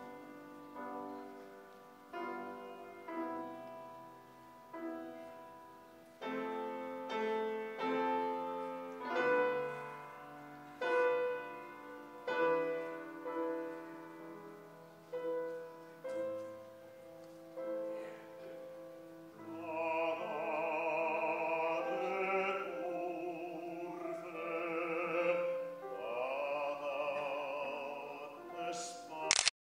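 Piano playing a slow introduction of separate, ringing chords; about twenty seconds in a baritone begins singing with vibrato over the piano accompaniment. Near the end there is a brief sharp crackle and the sound cuts out for an instant.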